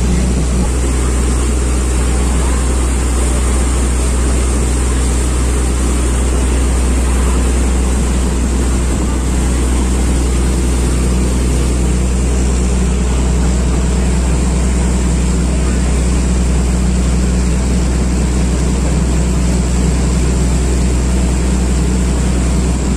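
Boat engine running steadily under way, heard from on board: a constant low drone that holds the same pitch and loudness throughout.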